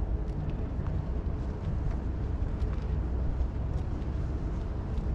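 Steady low rumble of outdoor city ambience, with a few faint scattered ticks.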